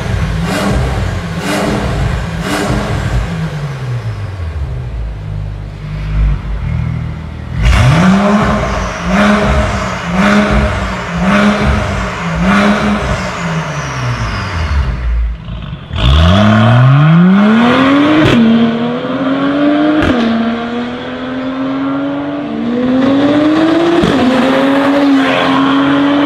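Mercedes-AMG CLS53's turbocharged 3.0-litre straight-six through a Fi Exhaust valvetronic cat-back with a catless downpipe. It free-revs in a string of quick blips about one a second, and the second, louder set comes with the exhaust valves open. Then the car accelerates hard, its note climbing and dropping sharply at several upshifts.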